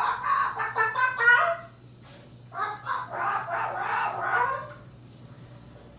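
Moluccan cockatoo imitating a chicken's clucking, a rapid "buck, buck, buck", in two runs with a short pause between.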